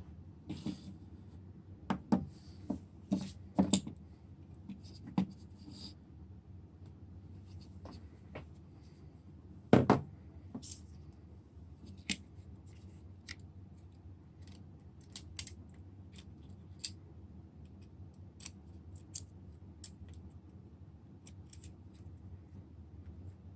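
Irregular sharp clicks, taps and light scratches of small hand tools working on a smartphone's screen glass, over a steady low hum. The clicks come thickest in the first few seconds, with one loud click near the middle and lighter ticks after it.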